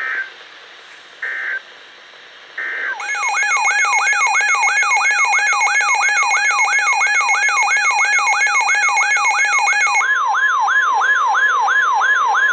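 Emergency Alert System tones from a Sage EAS Endec: three short digital data bursts, then a siren-like warbling alert tone whose sweeps fall about three times a second. Near the end its steady underlying note shifts higher.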